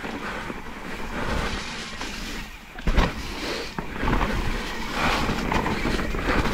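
Mountain bike riding over a rocky trail: continuous tyre and frame rattle with wind rumbling on the microphone, and a sharp knock about three seconds in.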